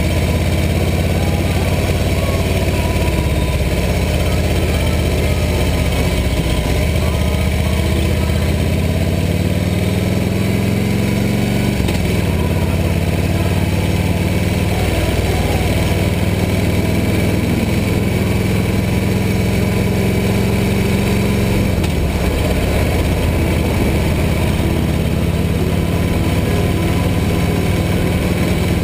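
Harley-Davidson V-twin motorcycle engine running under way, with a steady rush of wind and road noise. The engine note climbs, then drops abruptly about twelve seconds in as the bike shifts up a gear, and steps down again a little past twenty seconds in.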